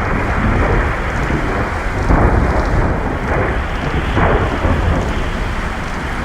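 Heavy rain with rumbling thunder, a steady downpour with the thunder swelling a few times.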